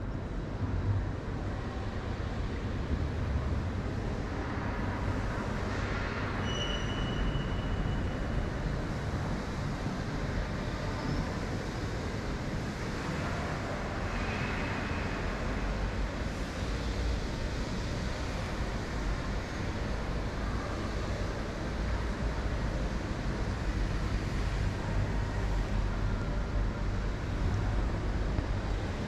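Steady low rumble and hiss of background noise in a large open hall, with a short high squeak about six and a half seconds in.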